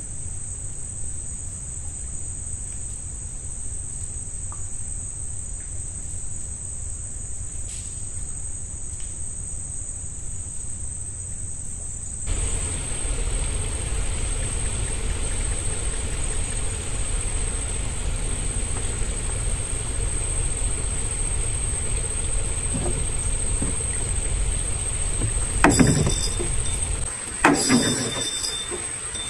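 Steady high-pitched chirring of night insects, crickets, over a low steady rumble. Near the end come two loud knocks and rustles as a fishing rod, bent hard by a hooked fish, is grabbed.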